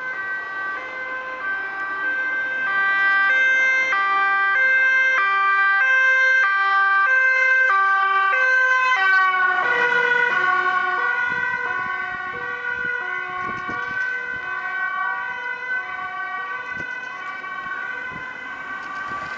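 Two-tone siren of a Dutch fire-service officer's van, alternating high and low notes. It grows louder as the van approaches, drops in pitch about nine to ten seconds in as it passes, then carries on lower and slowly fades as it drives away.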